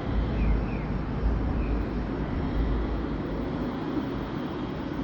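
Deep rumbling of fireworks bursts going off in the sky, swelling and fading, with a few faint short whistles in the first two seconds.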